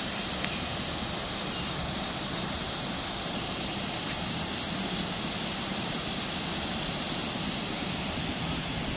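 Steady, even rushing outdoor ambience with a faint high steady tone above it.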